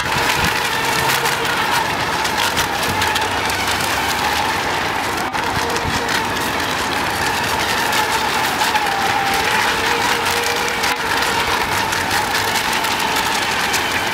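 Radio-controlled racing boats running at full speed: a steady high motor whine that wavers slightly in pitch as the boats turn, over a constant hiss.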